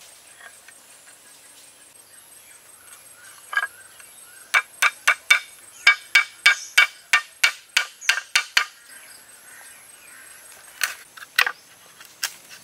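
Sharp knocks on bamboo: one, then a quick run of about a dozen at roughly three a second, then two more near the end, as small bamboo pegs are tapped into bamboo slats to fix them to the frame.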